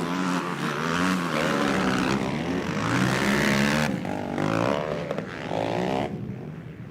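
Racing quad bike (ATV) engines revving up and down as the quads race on the motocross track, several engine notes overlapping and their pitch rising and falling. The sound thins out and drops off near the end.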